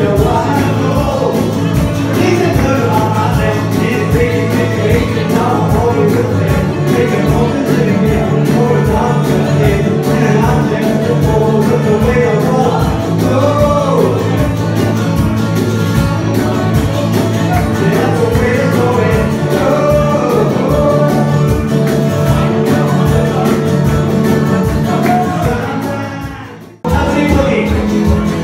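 Live acoustic guitar strummed in a steady rhythm with a man singing over it. About two seconds before the end the sound sinks away and then cuts back in suddenly.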